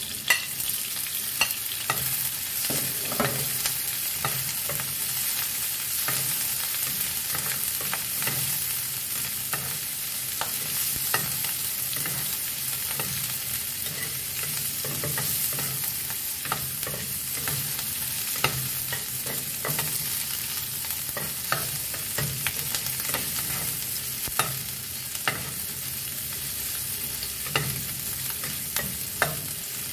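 Cubes of roast pork sizzling in hot oil in a nonstick frying pan, with a steady hiss. A spatula clacks and scrapes against the pan at irregular moments as it stirs, with a sharp clack right at the start as the pork is scraped off a plate into the pan.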